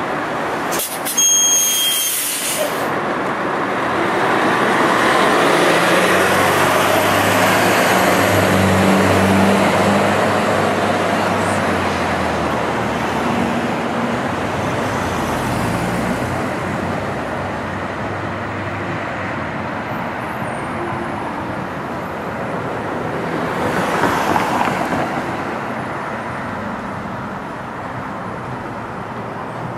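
City bus at a stop: a short, loud hiss of air about a second in, then its engine running as it pulls away, a low drone that swells for several seconds and fades. Near the end a car passes.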